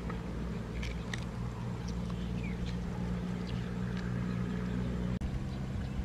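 A steady low motor-like hum, with a few small clicks and crackles as boiled eggshell is peeled by hand and some short high chirps.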